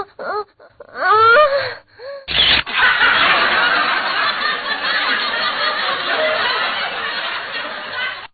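A person's voice in short bursts that slide up and down in pitch, broken off by a sharp click a little over two seconds in. A steady rushing noise follows and stops abruptly near the end.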